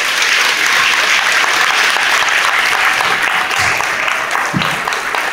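Audience applauding: a dense, steady clatter of many hands clapping that thins a little near the end.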